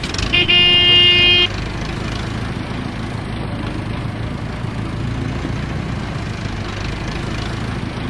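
A vehicle horn honks once, a steady held tone lasting about a second, then a steady low engine rumble runs on as the vehicle drives off.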